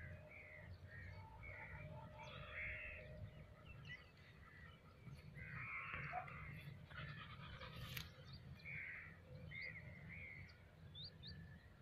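Faint birds calling in the distance: short harsh calls come at irregular intervals, with a few brief high chirps near the end, over a low steady rumble of wind.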